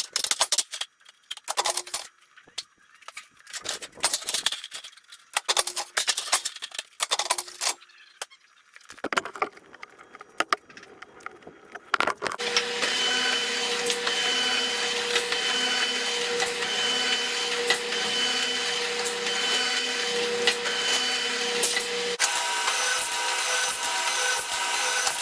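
Sheet-metal duct being handled and scraped in irregular bursts. About halfway in, a power tool starts running steadily with a whine, and its tone changes a little near the end.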